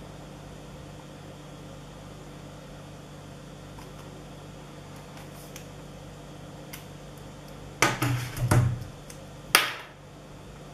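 Handling noise from a micro-USB OTG adapter and flash drive being unplugged from a tablet and handled: a short burst of knocks and rustling about eight seconds in, then one sharp knock. A steady low hum underlies it throughout.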